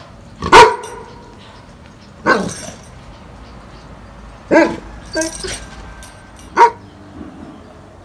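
A dog barking: about five single barks spaced a second or two apart, the first the loudest.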